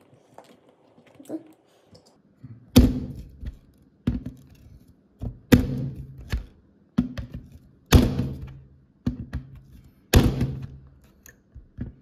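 Punch-down tool seating Ethernet cable wires into a patch panel's slots: four loud, sharp snaps about two to three seconds apart, with softer taps and clicks between them as the wires are placed.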